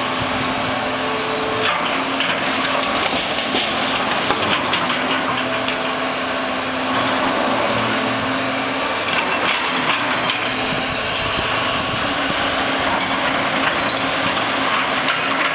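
Hydraulic excavator's diesel engine running steadily while demolition debris of broken wood and rubble is dropped from its bucket into a steel roll-off dumpster, with bouts of crashing, clattering and cracking wood, clustered in the first few seconds and again about ten seconds in.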